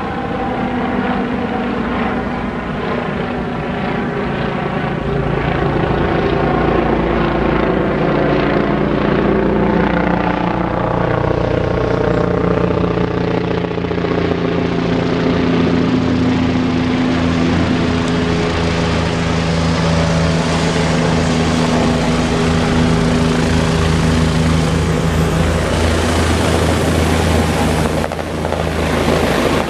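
Bell 429 twin-turbine helicopter approaching and descending close overhead: steady turbine whine and rotor beat, its tones drifting in pitch as it comes nearer. The rotor beat grows more distinct, and near the end a broad rushing noise of rotor wash takes over.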